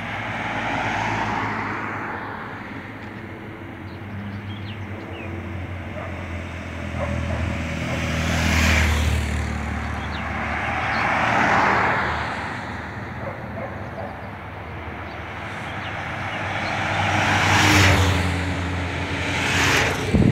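Cars and a motorcycle driving past one after another on a road. There are about four or five passes, each a swell of engine and tyre noise that rises and fades.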